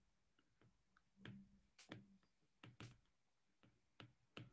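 Near silence broken by a handful of faint, irregular taps and clicks of a stylus on a tablet screen as words are handwritten.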